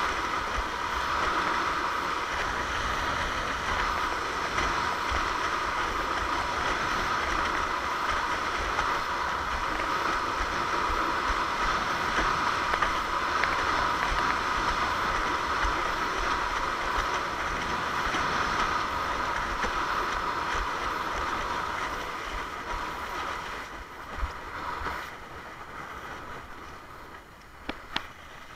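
Water rushing and hissing along a windsurf longboard's hull as it sails at speed, with wind buffeting the microphone. The rush eases off about three-quarters of the way through, and a couple of sharp knocks come near the end.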